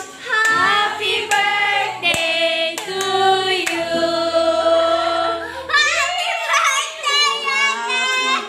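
Several voices singing over instrumental music, with a few sharp claps now and then.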